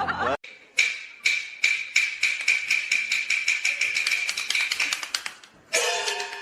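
A series of sharp taps, spaced out at first and then quickening, for about five seconds, followed near the end by a brief pitched sound.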